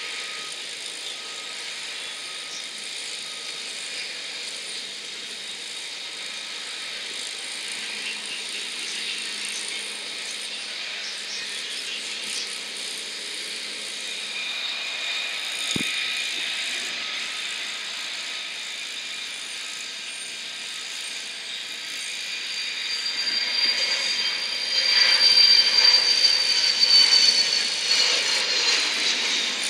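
Learjet business jet's twin turbofan engines at full power on the takeoff roll and lift-off: a steady jet hiss that swells loud toward the end, with a high whine that falls in pitch as the jet passes.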